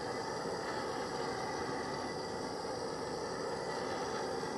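Hand-held gas torch burning steadily as its flame is swept in fast passes over faded black plastic, heating it to bring back the finish.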